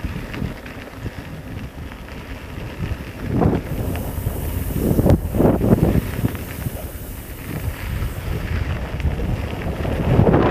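Wind buffeting the microphone, a low rumble that swells in gusts about three and a half seconds in, again around five to six seconds, and near the end.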